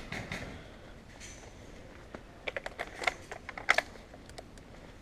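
Reloading an airsoft shotgun by hand: small plastic clicks as a shell is handled and loaded, with a quick cluster of sharper clicks from about two to four seconds in.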